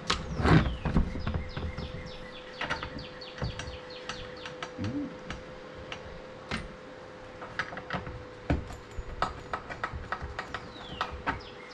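Irregular light clicks and knocks of parts and tools being handled, with a louder rustling knock about half a second in. Birds chirp briefly in the background, and a steady hum runs underneath.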